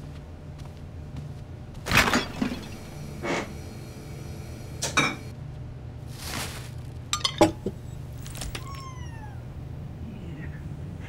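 A few sharp knocks and clinks of household handling, then a kitten mewing a few times near the end, over a low steady hum.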